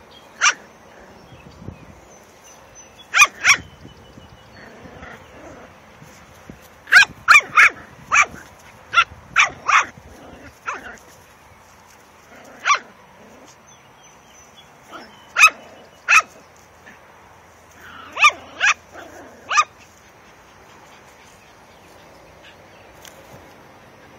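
A dog barking: about fifteen short, sharp barks in clusters of one to four, stopping about twenty seconds in.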